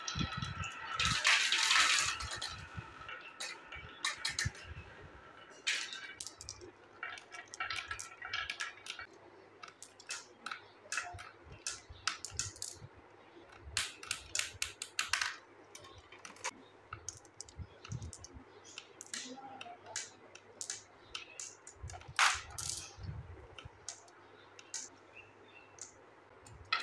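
Glass marbles rolling down a wooden wavy-groove track for the first few seconds, then many sharp clicks as they knock into one another while bunching up in plastic building-block chutes.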